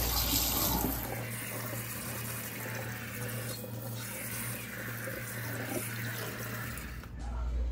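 Kitchen faucet running cold water onto cooked jumbo pasta shells in a metal colander in a stainless steel sink, rinsing them to cool them and stop the cooking. A steady splashing stream, loudest in the first second.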